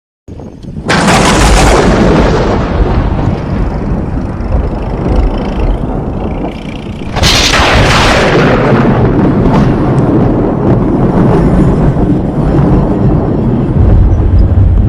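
Thunder without rain: two sharp cracks, about a second in and again about seven seconds in, each rolling on into a long, low rumble.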